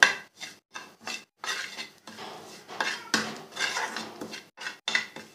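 A spoon scraping and clinking against a frying pan while stirring spices frying in ghee: a string of short, irregular scrapes, two or three a second.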